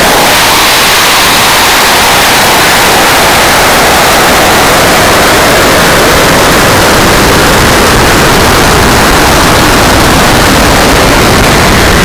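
Loud, steady rushing noise on a high-power rocket's onboard camera during its climb, from the motor's thrust and air tearing past the airframe, loud enough to overload the microphone.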